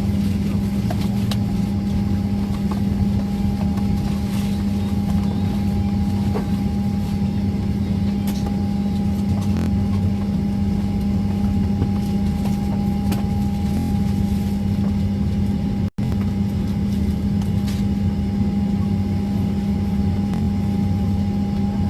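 Steady drone of an airliner's cabin noise from its engines and airflow: a low hum with a fainter steady higher tone over it. It cuts out for an instant about sixteen seconds in.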